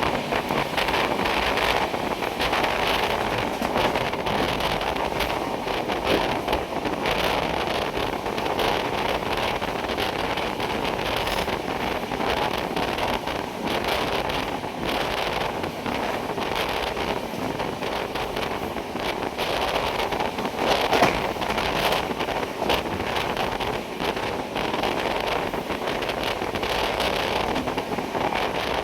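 Moving train running steadily, a continuous rumble and rattle with wind buffeting the microphone.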